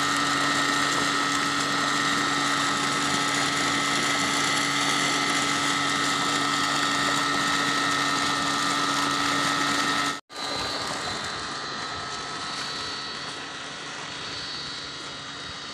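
Irrigation pump's motor running steadily as pumped water gushes from the outlet pipe and splashes into an earth channel. About ten seconds in the sound cuts off abruptly and a quieter, steady flowing sound follows.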